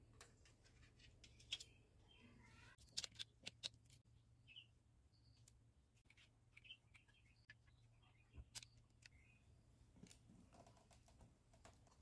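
Near silence: faint room tone with a few light clicks and taps, a quick cluster of them about three seconds in and a sharper single click later on.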